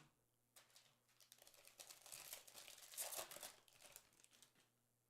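Faint crinkling and rustling of plastic card packaging being handled, starting about half a second in, loudest around three seconds and dying away after about four and a half seconds.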